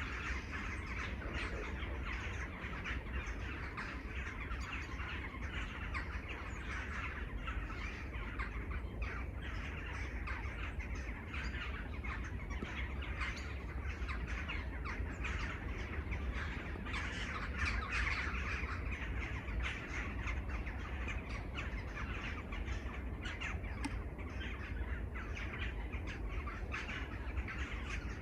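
A dense chorus of many birds calling at once, with crows cawing among them, over a steady low rumble.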